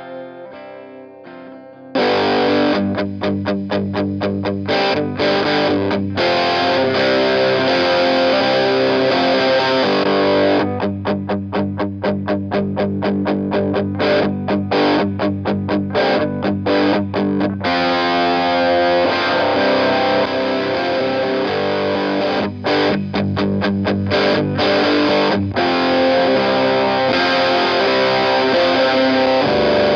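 Electric guitar played through a Walrus Audio Iron Horse LM308 distortion pedal. It opens with about two seconds of quieter picked notes, then loud distorted riffing that switches between fast, rapidly repeated chugged notes and held chords.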